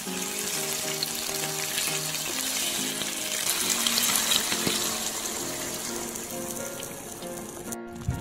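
Food sizzling in a frying pan: a steady hiss with fine crackles that cuts off abruptly near the end, over background music.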